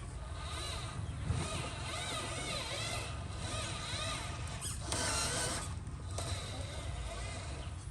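Small electric motors and gearboxes of radio-controlled construction machines whining and grinding as they work, with the pitch wavering up and down and a busier stretch about five seconds in.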